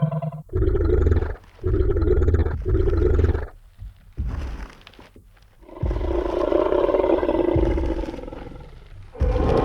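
Tyrannosaurus rex roar sound effect: three short growling roars in quick succession, then after a pause a long deep roar that slowly fades, with another roar starting near the end.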